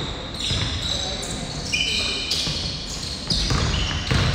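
A basketball being dribbled on a hardwood gym floor, heard as irregular thumps, with rubber-soled sneakers squeaking in short high chirps as players cut and stop. The sounds echo in the large gym.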